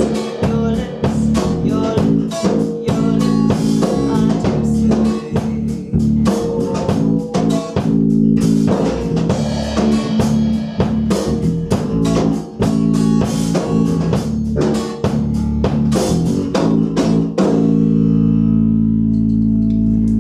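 Live band playing an instrumental passage on acoustic guitar, electric bass and drum kit. About seventeen seconds in the drums stop and a final chord is left ringing: the end of the song.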